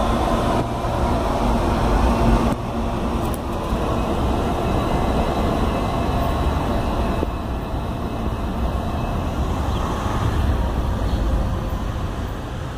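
CAF Series 8500 electric multiple unit pulling out and running away along the track: a steady rumble of wheels on rail and traction motors that slowly fades as the train draws off.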